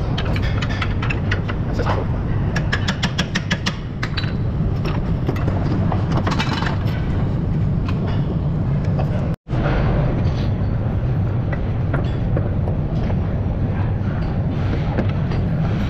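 Steady low workshop rumble, with a quick run of metallic clicks about three seconds in and scattered clunks and scrapes of metal as a front CV axle is pried at the transaxle and worked into the hub.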